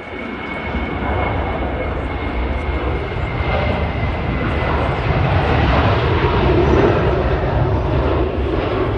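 Boeing 737-700's CFM56-7B jet engines at takeoff thrust during the takeoff roll and lift-off, a steady rumbling noise that grows louder, peaking about seven seconds in.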